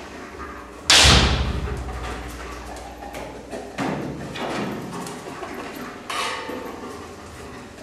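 A German shepherd search dog jumps up against wooden shelving and a radiator, its paws landing in thumps and knocks. The loudest is a heavy thump about a second in that dies away slowly. Lighter knocks follow near four and six seconds.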